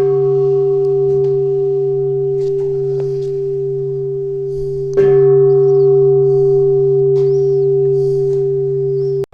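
A temple bowl bell struck twice, about five seconds apart, each strike ringing on in a long, steady, many-toned hum. The ringing cuts off suddenly near the end.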